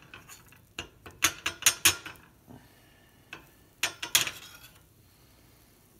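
A metal spoon scraping and knocking against a small nonstick frying pan while stirring butter and flour into a roux paste. There is a cluster of sharp clinks about a second in and another around four seconds, then it goes quiet.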